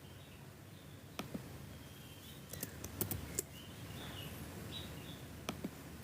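Faint scattered clicks of a computer mouse and keyboard, in small clusters, with a few short bird chirps in the background.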